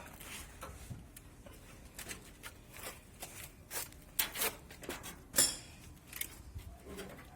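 Irregular clicks, scrapes and light knocks of hands handling and fitting parts while reassembling the top of a washing machine, with one louder scrape about five and a half seconds in.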